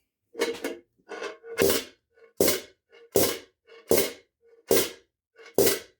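Hammer blows on a steel helmet shell held over a steel dent ball, driving the dent back out. There are about eight sharp metallic strikes, roughly one every three-quarters of a second, with a lighter tap before most of them.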